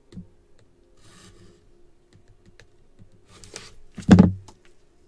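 Gloved hands handling a cardboard trading-card box on a table: light rubbing and scraping, a small knock at the start, and a louder scrape and heavy thud of the box about four seconds in.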